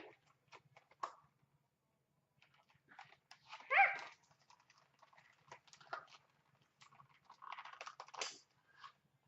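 Toy packaging being handled and cut, with scattered clicks and rustles, and one short pitched cry about four seconds in.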